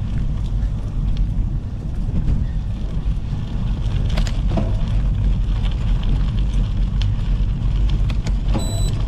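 Gravel bike rolling over a gravel track, heard as a steady low rumble of wind on the action-camera microphone and tyres on loose stones, with scattered sharp clicks and rattles. A short high beep sounds near the end.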